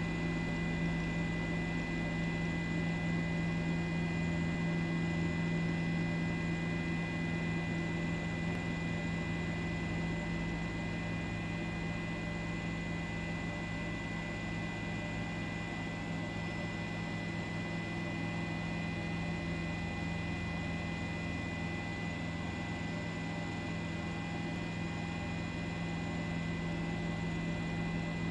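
Steady hum with a thin, constant high whine above it, unchanging throughout.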